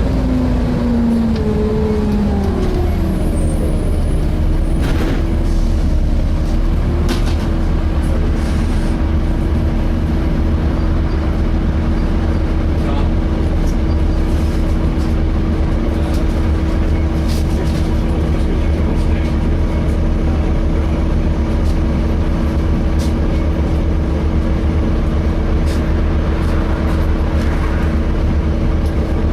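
Volvo B7TL double-decker bus heard from inside: a low engine drone, with a whine that falls in pitch over the first few seconds and then holds steady, likely from the engine-driven cooling fan, plus light cabin rattles.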